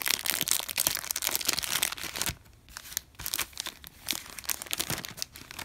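Football card pack's wrapper being torn open and crinkled in the hands: dense crackling for about the first two seconds, then quieter scattered crinkles as it is handled.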